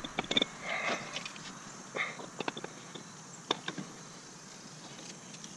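Scattered light knocks, clicks and short scrapes as a Honda Civic Si's A/C compressor is worked loose by hand and lifted up out of the engine bay. The knocks come mostly in the first four seconds.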